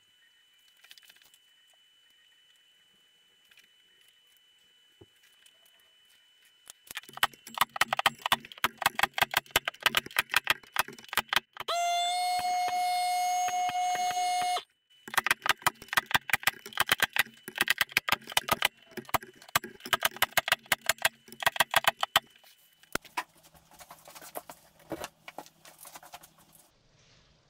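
Pneumatic pin nailer driving pins through MDF letters into a leather-covered board: a rapid run of sharp clicks. A loud steady hum of about three seconds breaks in the middle, starting and stopping abruptly.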